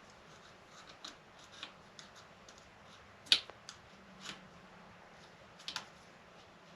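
Scattered light clicks and taps of small engine parts and hand tools being handled on a metal bench during a motorcycle engine teardown, with one sharper clack about halfway through and a quick double click near the end.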